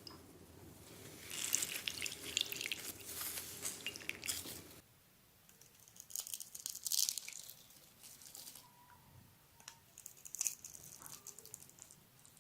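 Slime being squeezed and pressed by hand, giving wet crackling and popping sounds in three bouts.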